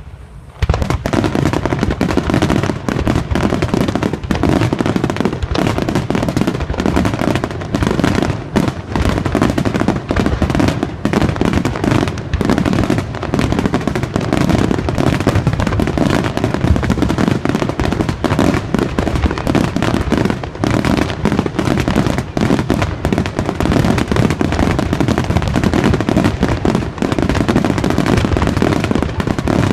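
Fireworks finale: a dense, continuous barrage of rapid bangs and crackles from shells bursting one after another, with no pause.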